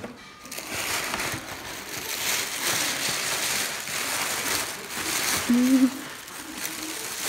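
Wrapping paper rustling and crinkling as a present is unwrapped, with a brief low pitched sound a little past halfway.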